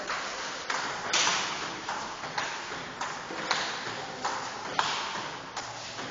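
Table tennis rally: the celluloid ball clicking off the bats and bouncing on the table, roughly one to two sharp knocks a second, each ringing on in the hall's echo.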